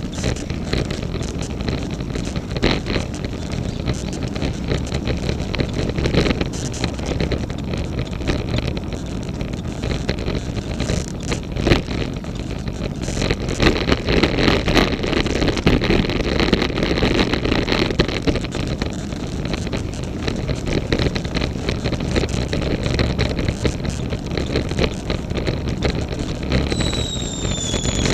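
Road bike riding noise, wind rushing on the bike-mounted camera's microphone over tyre and road noise, with irregular knocks and clicks. The louder knocks come from the top tube bag; the clicking is an unexplained noise from the bike. A brief high squeal falls in pitch near the end.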